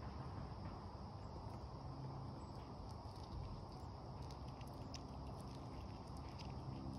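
An eastern chipmunk picking through and cracking black oil sunflower seeds on a wooden deck: faint, irregular small clicks and rustles that start about three seconds in, over a steady high insect drone.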